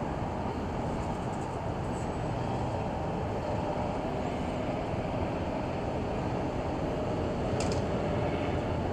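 Steady background rumble and hum with no clear words, with one short high clink near the end.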